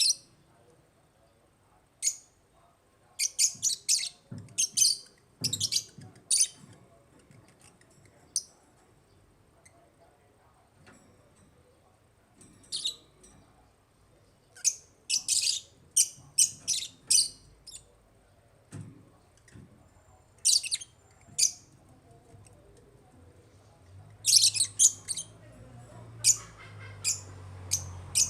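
African lovebirds chirping: sharp, high-pitched chirps in quick clusters of several at a time, with quiet pauses of a few seconds between clusters.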